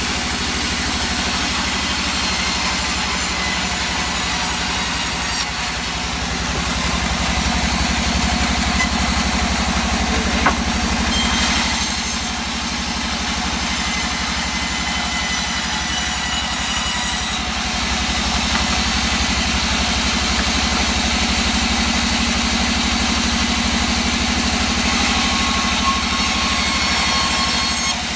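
Engine-powered saw running steadily while cutting teak wood.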